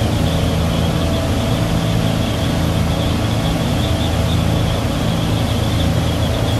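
Twin Tohatsu 250 four-stroke outboard engines running steadily with the boat under way at speed, mixed with the rush of wind and water.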